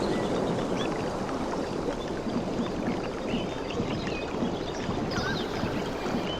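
Waves washing and lapping on a tropical beach, a steady rushing noise of water, with scattered short high chirps over it.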